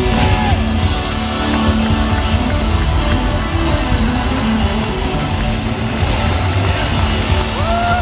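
Live rock band with electric guitars, bass and drums playing loudly, heard from the audience in a concert hall.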